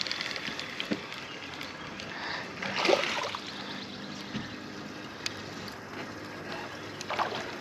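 Water splashing and trickling at the surface beside a fishing boat as a small bass is reeled in on a drop-shot rig, loudest about three seconds in.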